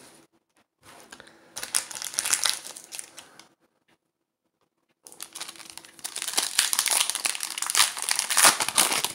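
Foil wrapper of a Panini FIFA Score trading-card pack crinkling as it is handled and opened by hand. It comes in two spells, a shorter one about a second and a half in and a longer, louder one from about five seconds in, with a silent gap between.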